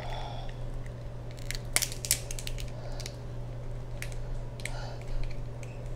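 Cooked lobster tail shell being cracked and pulled apart by hand: a series of sharp cracks and snaps, the loudest pair about two seconds in.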